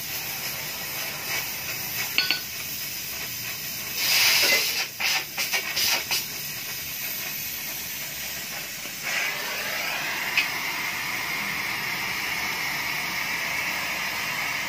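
Electric arc welding on a steel motorcycle muffler: a steady hiss and crackle. It turns louder and more broken with sharp crackles a few seconds in, and settles back to an even hiss after the middle.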